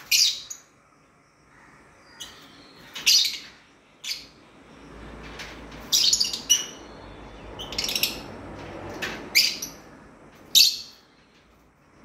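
Lovebird giving short, sharp, high-pitched chirps, about seven of them spaced a second or two apart.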